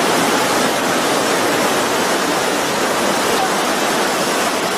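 Fast mountain stream tumbling over rocks, with a small waterfall just ahead: a steady, loud rush of water that does not let up.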